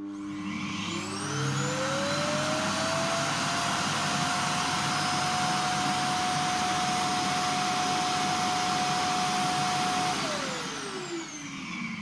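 iRobot Clean Base self-emptying dock running its suction motor to empty the docked Roomba i3+'s dustbin into its bag. A rush of air with a whine that rises as the motor spins up over the first few seconds, holds steady, then falls away as the motor winds down near the end.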